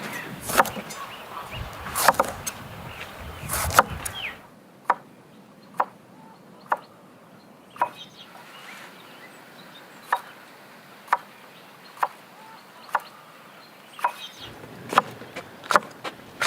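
A series of sharp knocks, about one a second, over a quiet background; in the first few seconds and again near the end they come more densely, over a low rumble.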